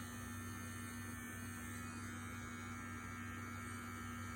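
Manscaped Lawn Mower 3.0 cordless electric trimmer running steadily, an even motor hum with no change in pitch or level.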